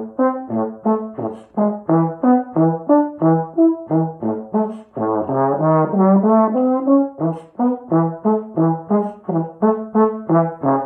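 Solo trombone playing a passage of short, separated notes at about three a second, with a smoother run of connected notes climbing in pitch around the middle.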